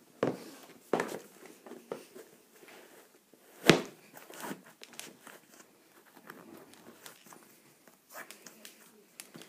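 Scattered rustles, scuffs and clicks of a Nike Zoom Born Ready basketball shoe being worked onto a foot and its laces pulled and tied, with one sharp knock about four seconds in.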